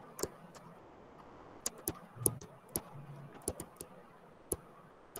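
Faint, irregular sharp clicks and taps, a few a second, from a pen or stylus tapping on a tablet screen while notes are handwritten.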